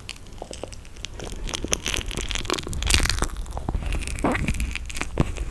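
Close-miked eating of toasted marshmallow: a dense run of crackling clicks and crunches that grows louder about two seconds in.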